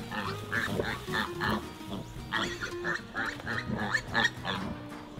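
A piglet squealing in short, repeated cries as it is grabbed and carried by a leg, over background music.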